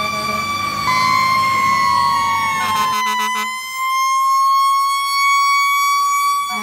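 A fire-truck siren sounding a loud, steady, high wail. About a second in, its pitch slowly sags, then eases back up, with a few clicks around three seconds in.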